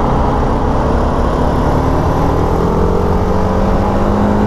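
Motorcycle engine pulling steadily under acceleration through one gear, its pitch climbing slowly, heard from the rider's seat with low wind rumble on the microphone.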